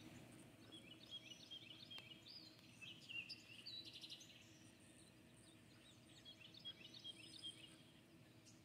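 Songbird singing faintly: quick runs of high chirping notes, one through the first few seconds and another near the end, over a low steady background hum.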